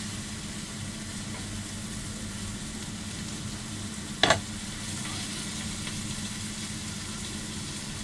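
Chicken pieces sizzling on a hot flat-top griddle as they are turned with a metal utensil, a steady hiss over a low hum. About four seconds in a single sharp knock stands out.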